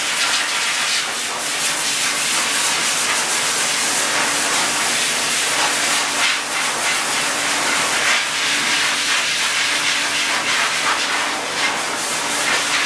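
High-velocity dog grooming dryer (force dryer) blowing air through its hose onto a poodle's coat: a loud, steady rush of air with a faint hum underneath, swelling and dipping a little as the nozzle moves over the coat.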